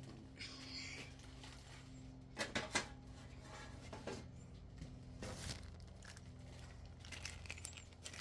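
Handling noises while a ceiling fan blade is being fitted: rustling and crinkling, with a quick cluster of sharp knocks about two and a half seconds in and a few lighter clicks later. A steady low electrical hum runs underneath.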